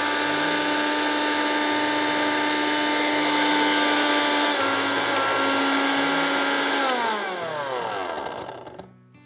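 Electric mixer grinder with a stainless steel jar running at full speed, grinding tomato into a wet paste: a loud steady motor whine. About seven seconds in it is switched off and the whine falls in pitch as the motor spins down to a stop.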